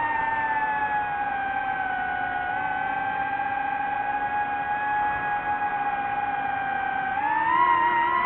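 DJI FPV drone's motors whining in a steady pitched tone. The pitch sinks slightly at first, holds, then rises about seven seconds in as the motors speed up.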